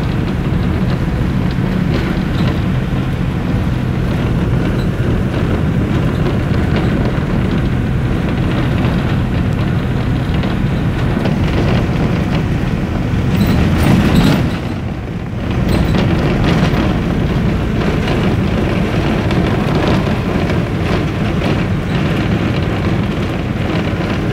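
Steady road and engine noise of a moving vehicle heard from inside, a loud low rumble that swells briefly a little past halfway and then dips for a moment.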